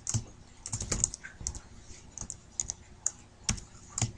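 Computer keyboard keys clicking as a word is typed, in short irregular runs of keystrokes.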